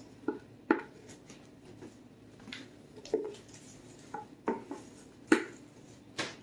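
A spatula and a mixing bowl knocking and scraping against each other and against metal cake pans as cake batter is scraped out: a series of separate sharp clicks and knocks, the loudest about a second in and about five seconds in.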